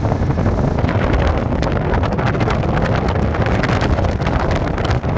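Wind buffeting the microphone with a constant crackle, over the rumble of a moving vehicle.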